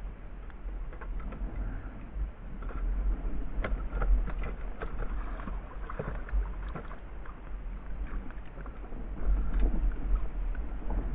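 Wind rumbling on the microphone aboard a plastic fishing kayak, with scattered small knocks and clicks as gear and the fish are handled on the deck.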